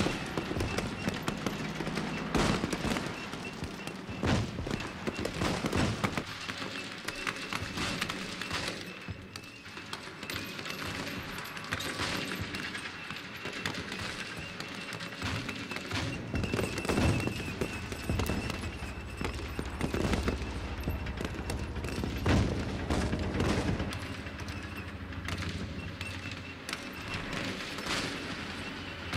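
Battlefield sound-effects soundtrack: steady gunfire and machine-gun fire with heavier blasts every few seconds, over a low rumble. It plays first as plain stereo and then, partway through, with QSound 3D stereo-widening processing.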